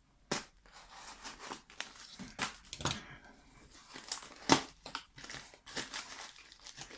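Parcel packing material being handled and pulled out by hand: irregular crinkling and rustling with scattered sharp crackles, the loudest about four and a half seconds in.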